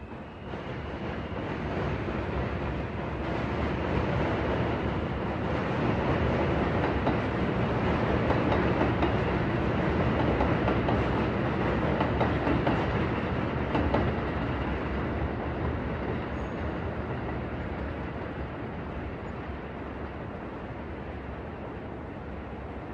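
A vehicle passing, with a rumbling noise that swells over several seconds, peaks about ten seconds in, and slowly fades.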